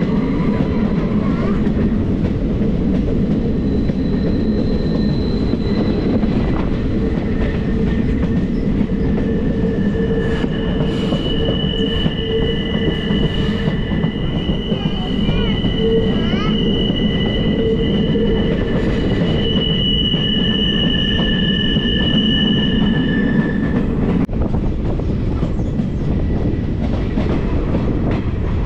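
Passenger train running on curved track, heard from aboard a coach: a steady rumble of wheels on rails. From about a third of the way in, the wheels squeal on the curve in long high-pitched tones, which stop suddenly near the end.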